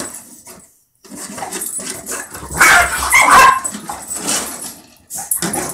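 Dogs playing: a boxer and a small puppy barking in bursts, loudest from about two and a half to three and a half seconds in.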